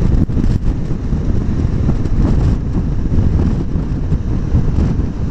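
Motorcycle riding along at road speed: a steady low rumble of wind on the microphone over the running bike.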